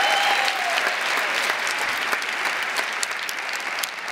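Audience applauding in a large hall, the clapping slowly dying down.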